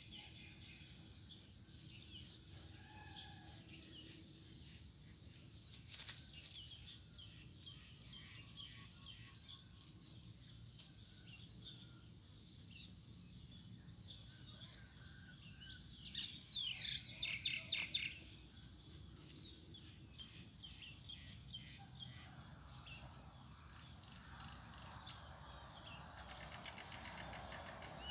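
Small birds chirping on and off, with a brief, louder flurry of quick repeated bird sounds just past the middle. Underneath is faint scratching as a cat paws and digs in sandy soil and dry leaves.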